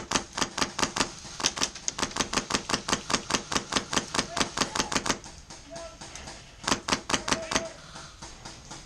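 Airsoft guns firing a rapid string of shots, about six a second, for about five seconds; after a short pause, another brief string of shots.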